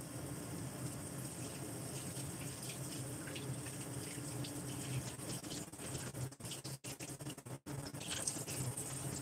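Sliced beef and water simmering in a covered stainless wok on a gas burner: steady bubbling with small pops, the sound dropping out briefly a few times about two-thirds through.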